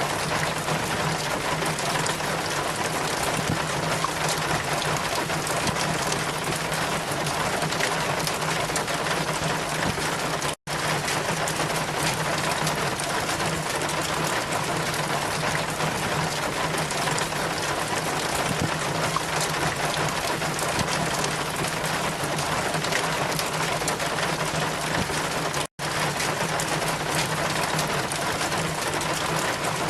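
Steady, even water noise of the kind in a rain or river recording, with a low hum under it; it cuts out to silence for an instant twice, about a third of the way in and again late on, like loop or edit points.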